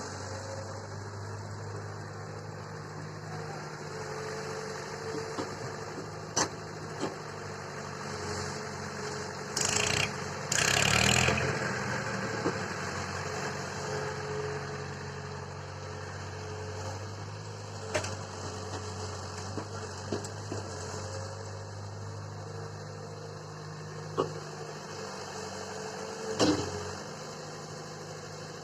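Swaraj 855 tractor's diesel engine running steadily, with a louder burst of noise about ten seconds in and a few sharp knocks.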